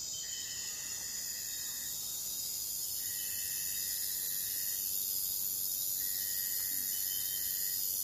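Insects shrilling in a steady, dense high chorus. A long even note repeats three times, about every three seconds.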